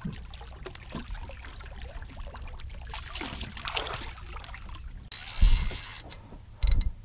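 Sea water splashing and sloshing as a hooked conger eel thrashes at the surface beside a small boat. About five seconds in comes a brief rush of hiss with heavy low thumps, and another thump follows near the end.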